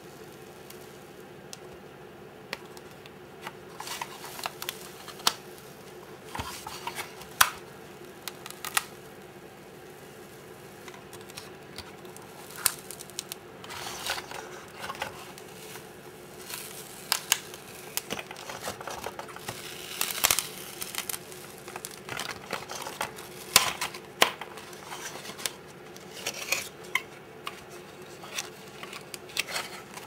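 Thin plastic membrane keypad film being slowly peeled off a microwave control panel, its adhesive layer letting go in irregular crackles and sharp snaps, with the film crinkling as it bends.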